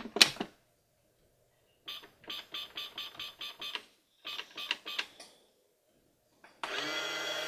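A toy microwave being set and started: one sharp click, then two short runs of quick plastic clicks, about five a second. About six and a half seconds in, its electronic tune starts playing.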